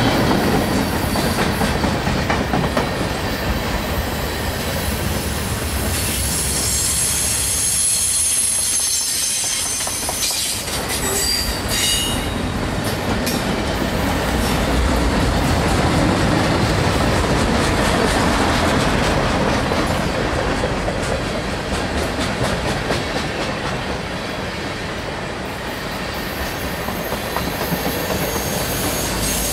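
Freight cars of a passing train rolling by close at hand: a steady rumble of steel wheels on rail with clicking over the joints. A few faint high wheel squeals come about a third of the way in.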